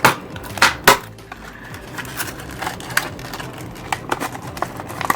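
A metal padlock and its cut-open hard plastic blister pack being handled: a few sharp clicks and clatters, loudest in the first second, then lighter scattered tapping.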